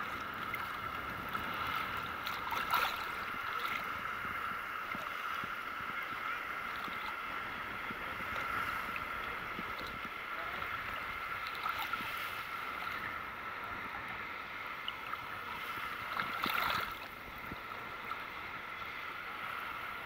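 Sea water lapping and sloshing against a waterproof camera housing riding at the surface, heard muffled, with a few short splashes, the biggest about three-quarters of the way through. A steady high-pitched hum runs underneath.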